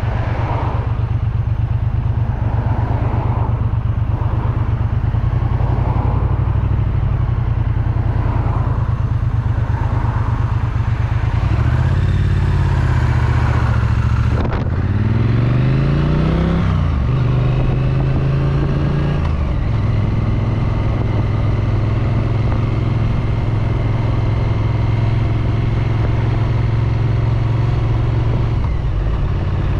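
Triumph Street Twin's 900 cc parallel-twin engine and exhaust running under way. The engine pulls at a steady speed, its revs rise and fall about twelve seconds in, it is briefly shut off about halfway, then swings up and down in pitch before settling to a steady note for the rest.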